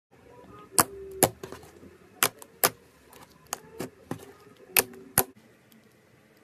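Cutting into a slime-filled stress ball: sharp metallic clicks in four pairs, each pair less than half a second apart.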